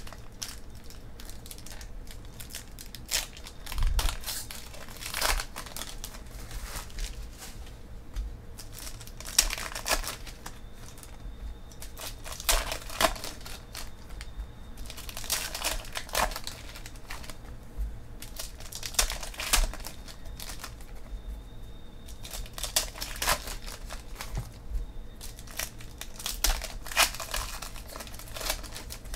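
Foil trading-card pack wrappers crinkling and tearing as they are ripped open by hand, in irregular bursts. Between the bursts the cards are flipped through.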